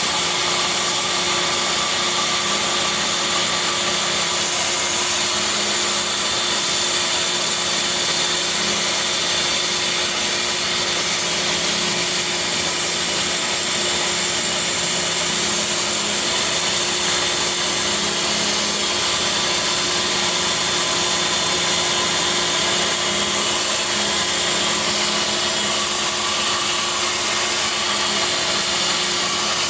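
Bandsaw running steadily while resawing a tiger maple (soft maple) board into a half-inch-thick slab for knife handles: a constant motor hum with the steady noise of the blade cutting through the wood, unchanging throughout.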